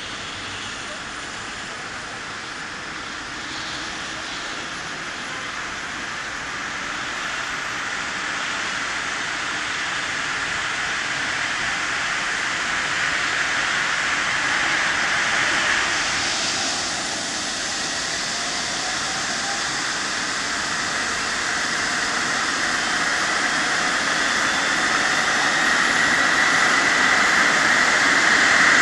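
An ADAC rescue helicopter's turbine engines running up on the ground before lift-off: a steady jet-like whine that grows steadily louder.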